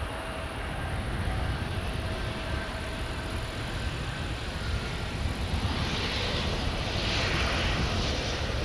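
Boeing 777-200ER's twin jet engines at taxi power: a steady rumble with a hissing whine that grows louder about six seconds in as the airliner turns toward the listener.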